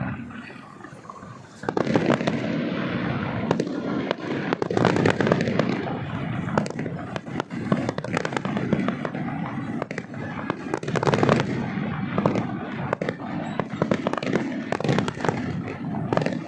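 Fireworks display: after a quieter first moment, many bangs and crackles come in quick succession from about two seconds in, overlapping into a continuous din.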